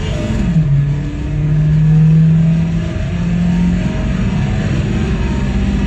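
Toyota Corolla's 1.8-litre 7A-FE four-cylinder engine pulling hard at full throttle, heard from inside the cabin. It drops in pitch about half a second in as it shifts up a gear, then revs steadily higher again.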